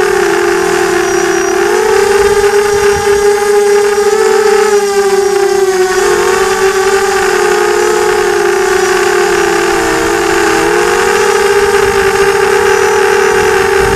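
FPV drone's electric motors and propellers whining loudly and steadily, heard from the drone's onboard camera. The pitch steps up about two seconds in and dips briefly about six and ten seconds in as the throttle changes.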